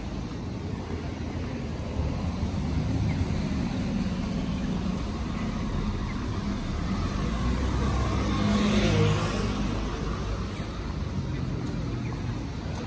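Road traffic on a city street: a steady low rumble of passing vehicles, with one car passing close by, swelling to a peak about nine seconds in and then fading.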